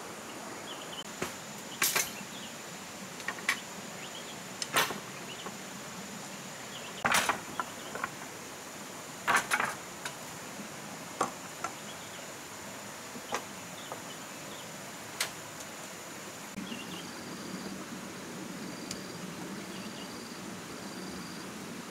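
Sharp, irregular knocks of bamboo poles being handled and set down on a floor of bamboo poles, over a steady high insect drone. Near the end a short high chirp repeats four times.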